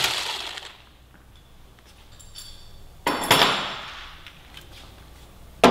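Metal tools and small parts clinking and clattering during hand work on a motorcycle: a clatter that dies away in the first second, another about three seconds in that fades over a second or two, and a sharp click near the end.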